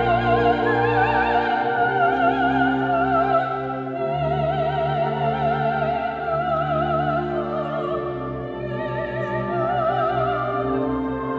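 Solo soprano singing long, held notes with wide vibrato over steady, held accompanying chords.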